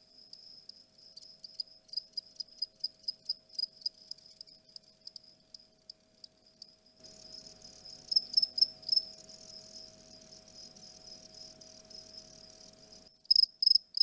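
Male Mediterranean field cricket (Gryllus bimaculatus) stridulating its soft courtship song, rubbing its wings together. It makes an irregular string of quiet, high ticks and short chirps, with a few louder chirps about eight seconds in and again near the end.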